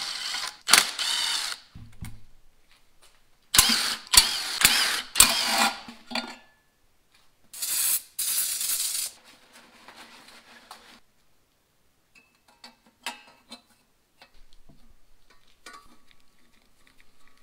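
Milwaukee cordless ratchet spinning in several short bursts as it unbolts the oil pickup tube. About 8 seconds in, an aerosol cleaner sprays with a hiss, followed by faint clicks and taps of metal parts being handled.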